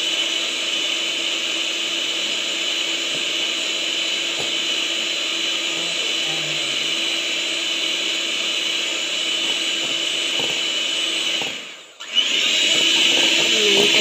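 Electric hand mixer running steadily, its beaters whisking egg whites for macaron meringue in a glass bowl, with a steady motor whine. Near the end it cuts out for a moment and starts again.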